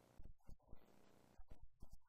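Near silence with a very faint man's voice speaking.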